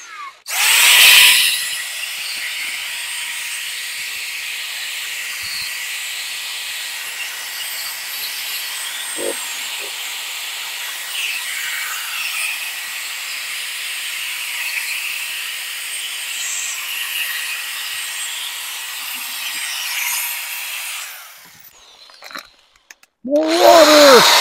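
Corded electric drill spinning a sanding pad against a plastic headlight lens during wet sanding: a steady motor whine with the hiss of the pad on the lens. It stops about 21 seconds in and starts again near the end.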